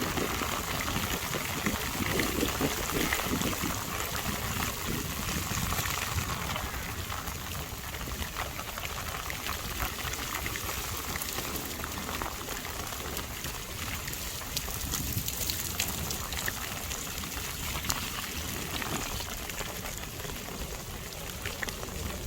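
Heavy rain falling, a steady hiss of water with no let-up.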